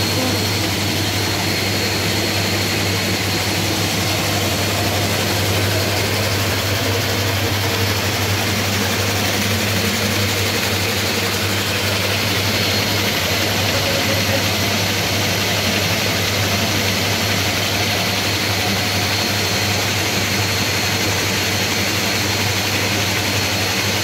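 Belt-driven ABS plastic-flake washing machine running: the electric motor drives a V-belt and a large pulley that spin the agitator, churning plastic flakes in foamy water. The result is a steady hum under a constant rushing noise.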